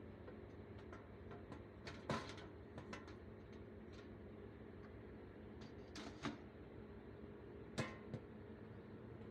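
Stainless steel pedal bins being handled, with their lids lifted off and set back. This gives a few sharp metal clicks and knocks, the loudest about two seconds in and near the end, over a steady low machinery hum.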